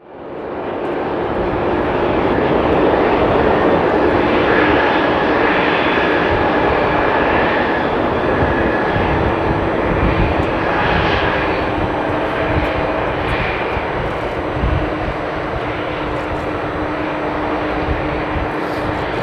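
Jet engines of a McDonnell Douglas MD-11F freighter running, a loud steady rushing noise with faint steady tones in it, rising in over the first couple of seconds.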